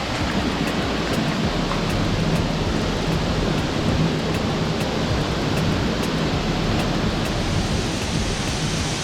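Waterfall rushing into a swimming hole: a loud, steady roar of falling water that does not change.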